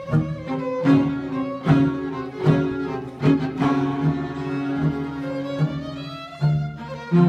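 String chamber orchestra of violins and cellos playing live, with sustained notes punctuated by sharp accented strokes about every second.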